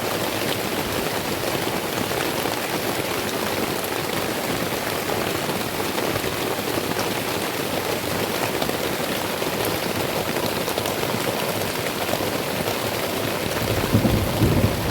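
Heavy rain falling steadily in a dense hiss. Near the end a low rumble of thunder swells in.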